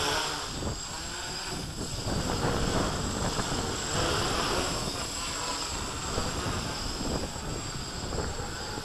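Q450 quadcopter's electric motors and propellers running with a steady high whine, under gusty wind rumbling on the microphone.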